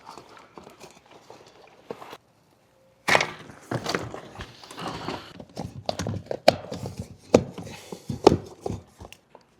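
Irregular clicks, knocks and rubbing from a bicycle wheel and tire being handled and turned by hand, with a brief total dropout about two seconds in.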